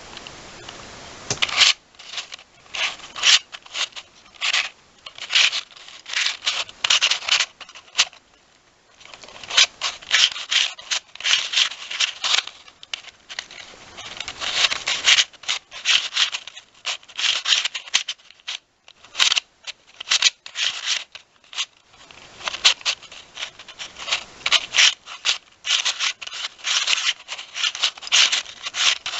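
Square-1 speed cube being turned rapidly during a solve: its pieces rub and scrape against each other in quick runs of turns, broken by short pauses about eight seconds in and again around twenty seconds in.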